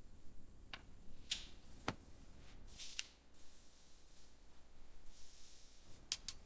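Scattered sharp clicks and light taps, about seven, with a faint high hiss between them.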